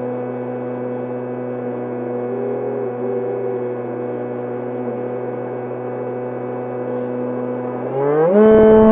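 Electric motor and propeller of an E-flite Opterra flying wing in flight, giving a steady drone. Near the end it rises quickly in pitch and gets louder as the motor speeds up.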